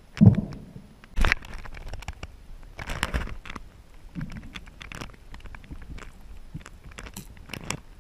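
Underwater crackling and clicking with a few dull knocks, the strongest two in the first second and a half. Heard from a camera submerged in shallow seawater.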